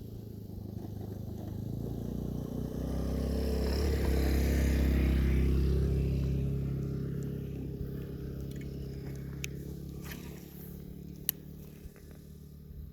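A motor vehicle driving past: its engine grows louder, is loudest about five seconds in, then fades away. A few sharp clicks come near the end.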